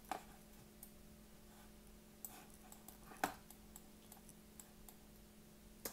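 A few faint, scattered clicks from a computer keyboard and mouse, one clearer click a little after three seconds in, over a low steady hum.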